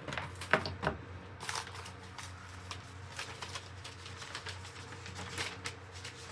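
Paper rustling and crinkling as printed instruction manuals are handled and leafed through, in irregular short crackles and taps.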